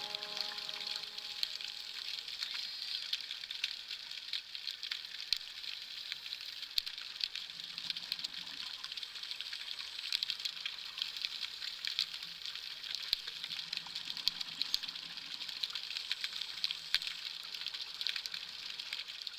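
Underwater ambience: a steady fizzing crackle made of many tiny clicks. A faint low hum swells and fades twice.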